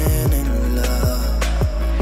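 Background R&B-style pop song between sung lines: a strong bass under repeated deep drum hits that drop in pitch.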